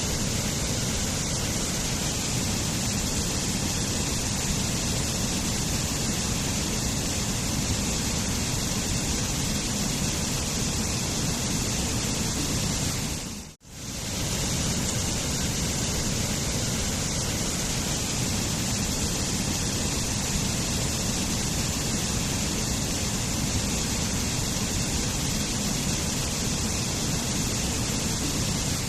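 Waterfall rushing steadily. About halfway through, the sound fades away to almost nothing for a moment and then comes straight back.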